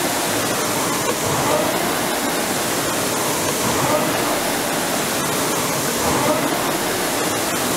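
Concept2 indoor rower's air flywheel whooshing steadily under hard rowing, swelling once per stroke, a little more than two seconds apart.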